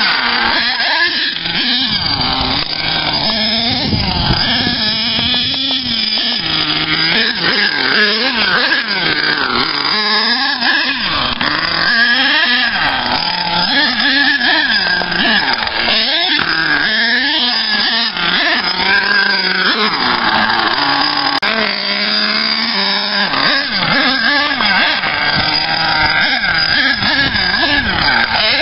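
Axial .28 two-stroke nitro engine of an HPI Savage RC monster truck, revving up and down over and over as it is driven.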